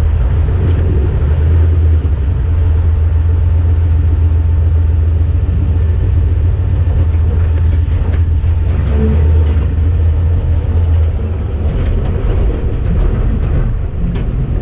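Car engine running steadily with a loud low drone, easing off after about 11 seconds.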